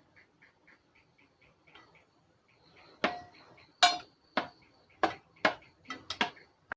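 A utensil knocking sharply against a bowl about eight times in the second half, as jackfruit slices are turned in batter. Before that there is only a faint, rapid high chirping, about four a second.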